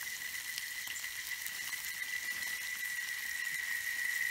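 Insects droning steadily on one high pitch, with a hiss above it.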